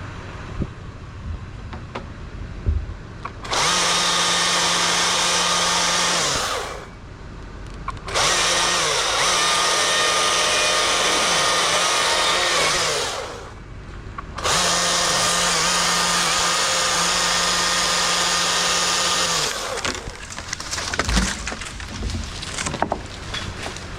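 Two-stroke chainsaw run at full throttle three times for a few seconds each, cutting wood, dropping back to idle in between. The pitch dips briefly now and then as the chain bites.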